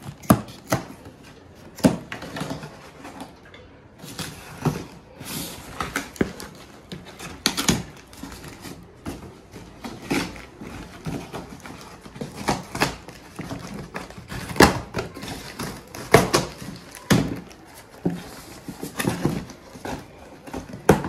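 Cardboard parcel box being cut open with scissors and handled: an irregular run of snips, rustles and knocks as packing tape is cut and the box flaps are pulled open.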